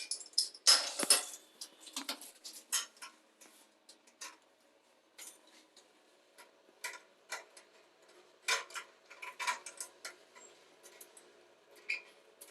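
Irregular light clicks, clinks and scrapes of small hard objects being handled, thickest in the first two seconds and again about eight to ten seconds in.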